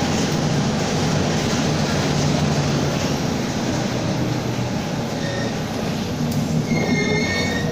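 Inside a Mercedes-Benz OF-1722M city bus under way: engine and drivetrain running with a steady low growl from the driveshaft, which growls in second gear. A brief high squeal comes in near the end.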